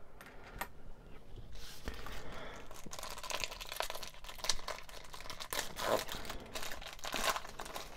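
Foil booster pack wrapper being torn open and handled, crinkling with an irregular run of sharp crackles that grows busier partway through.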